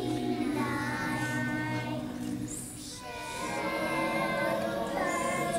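A group of young children singing together, with a short pause between phrases about halfway through.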